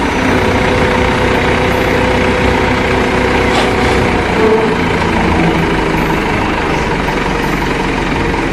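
Heavy truck engine running steadily while a dump truck unloads its load.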